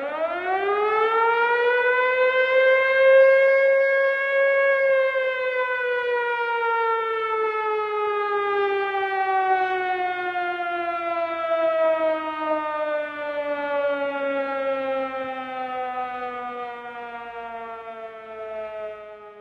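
Civil defence air-raid siren winding up quickly from silence to a steady high wail, holding for a few seconds, then slowly winding down in pitch as it coasts.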